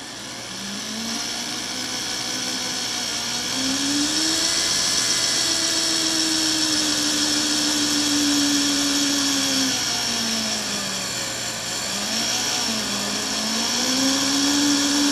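Electric drill running and boring holes through a soft aluminum motor mount. The motor's pitch rises over the first few seconds, holds, dips about ten seconds in, then climbs again.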